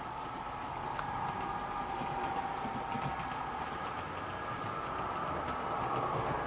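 Electric model trains running on the layout's track: a steady motor whirr and wheel rumble that grows a little louder toward the end, with one sharp click about a second in.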